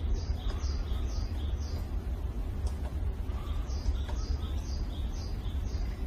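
A bird calling in two runs of short, high, falling notes, about two a second, with a pause of about two seconds between the runs. A steady low rumble lies under it throughout.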